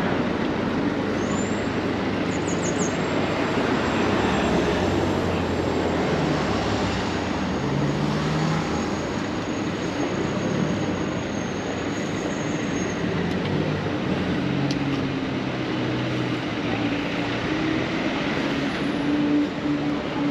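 Town-centre street traffic: cars running past and idling on the road, a steady mixed hum of engines and tyres with engine tones shifting in pitch.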